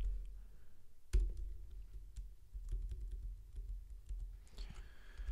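Typing on a computer keyboard: scattered, irregular keystrokes, one louder key press about a second in, over a steady low hum.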